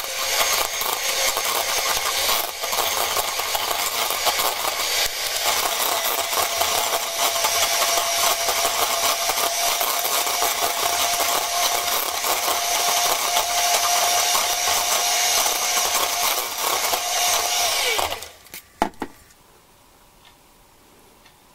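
Electric hand mixer running, its beaters churning softened cream cheese in a stainless steel bowl. The motor's pitch steps up a little about six seconds in. It stops suddenly about eighteen seconds in, followed by two or three sharp knocks.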